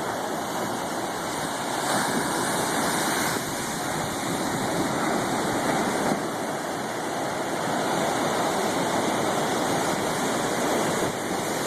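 Big churning water rushing steadily, an even wash of noise without distinct breaking crashes; a slight shift in level about two and three and a half seconds in.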